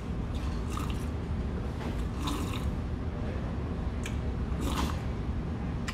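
A man sipping broth from a small cup in a few short slurps, with eating noises, over a steady low hum.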